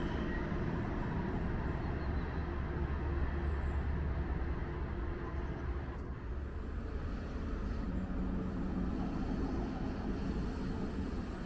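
Steady low rumble of a passing train, with an abrupt change about six seconds in.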